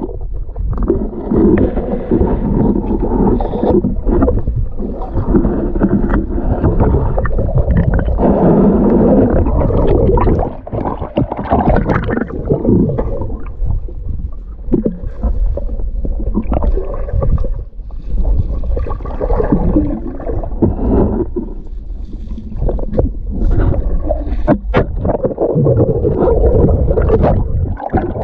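Muffled underwater noise through an action camera's waterproof housing: river water rumbling and gurgling around it, with a few sharp knocks.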